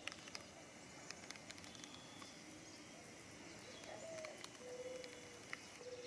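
A mourning dove cooing faintly in the distance: a few soft, low notes in the second half, the first rising, then a longer steady one. Faint scattered ticks sound over quiet outdoor ambience.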